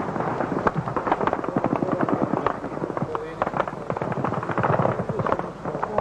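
Rapid, irregular cracks of small-arms and machine-gun fire, several shots a second, coming from a battle.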